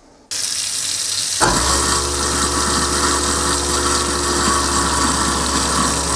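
Tap water running into the sink drain, and about a second later a newly installed Waste King 1 HP garbage disposal switches on and runs with a steady motor hum under the water's hiss, on its first test run.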